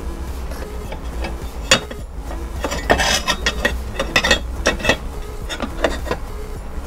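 Metal clinks and scrapes of a steel engine-mount bracket and bolt being handled and fitted against a scooter frame: one sharp clink a little before two seconds in, then a cluster of quick clinks in the middle. Background music runs underneath.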